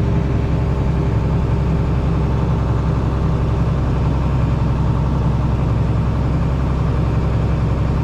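Tractor engine running steadily under PTO load, driving a grain cart's unloading auger as it pours soybeans into a semi trailer, heard from inside the tractor cab.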